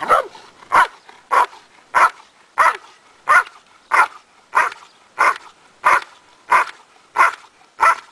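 A working dog barking hard and regularly, about one and a half barks a second, at the hide blind where the helper is concealed: the bark-and-hold stage of Schutzhund protection work.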